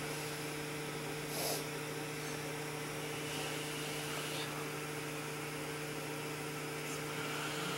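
Steady low electrical hum with a constant hiss underneath, with a brief soft rustle about one and a half seconds in.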